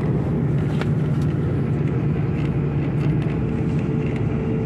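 Tour bus engine running with a steady, even hum, heard from inside the passenger cabin.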